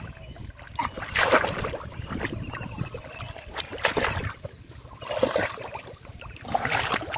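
River water splashing and sloshing in irregular bursts, as of hands or a body moving through shallow water.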